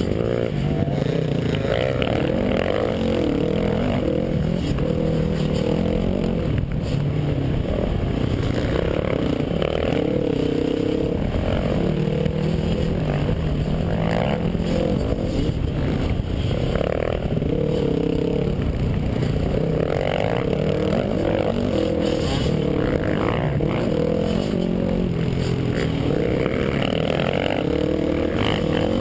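Dirt bike engine heard from the rider's helmet camera while riding a rough trail, its note rising and falling over and over with the throttle. Wind rush and the clatter of the bike over the ground run underneath.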